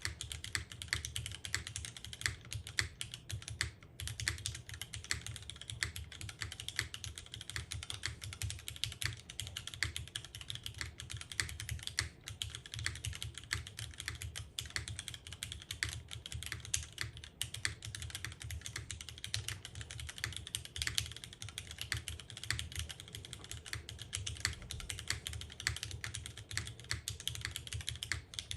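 Continuous fast typing on a mechanical keyboard with lubed and filmed Cherry MX Vintage Black linear switches in an aluminium plate and GMK keycaps, a dense run of keystroke clacks with a short pause about four seconds in.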